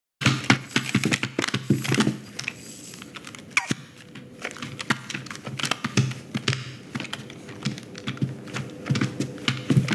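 Film sound effects: a dense run of small, sharp clicks and taps, busiest in the first two seconds and again near the end, over a faint steady hum.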